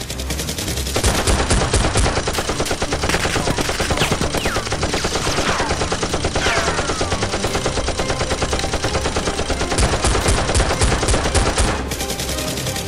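Rapid automatic gunfire sound effects, a dense stream of shots, much louder from about a second in until near the end, with a few short falling whines over it.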